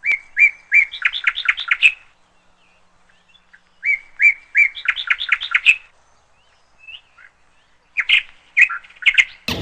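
A parrot calling in short, sharp chirps. A quick run of about eight chirps lasts two seconds and is repeated about two seconds later. A few more chirps follow near the end.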